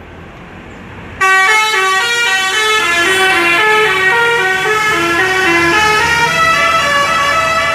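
Tour bus telolet horn: a multi-tone air horn playing a quick melody of stepping notes. It starts suddenly and loudly about a second in, over the low hum of the bus engine.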